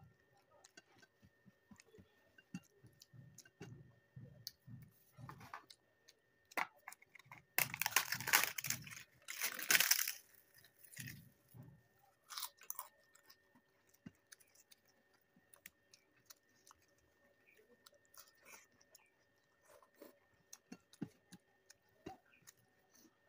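A person chewing food close to the microphone, with small mouth clicks and steady chewing. About seven seconds in, the chewing turns to a loud stretch of crisp crunching that lasts roughly three seconds, then goes back to quieter chewing.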